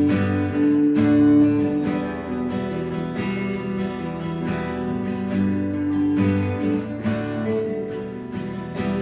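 Acoustic guitar strumming chords, an instrumental interlude between verses of a worship song.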